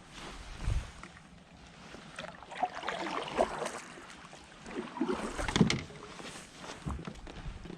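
Irregular knocks, thumps and rustles of gear being handled on a fishing kayak, with the loudest thump about two thirds of the way in.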